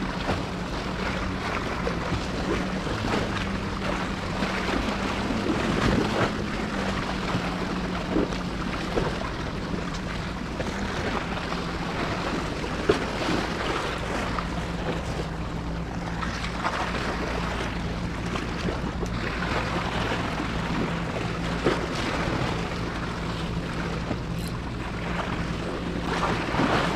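Sea waves washing against the rocks of a breakwater, with wind buffeting the microphone. A steady low hum runs underneath.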